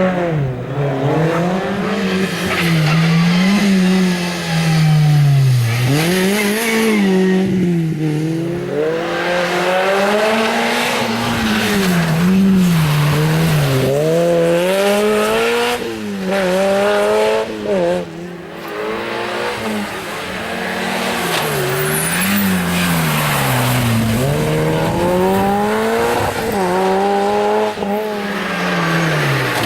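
Rally car engines driven hard on a stage, the pitch repeatedly climbing under acceleration and dropping off at each gear change or lift for a corner, every one to three seconds, with tyres squealing.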